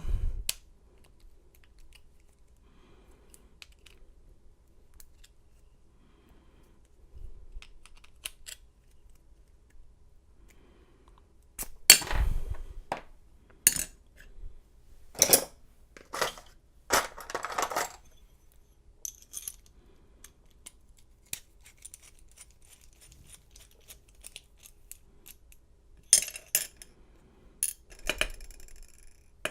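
Small metal clicks and clinks from taking apart a Schlage deadbolt's lock cylinder by hand, its pins and springs being worked out. The loudest click comes about twelve seconds in, with a run of sharp clicks over the next several seconds and a few more near the end.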